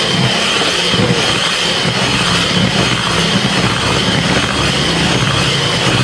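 Electric hand mixer running steadily, its beaters whipping thick pancong batter with margarine just added: a constant motor hum with a high whine above it.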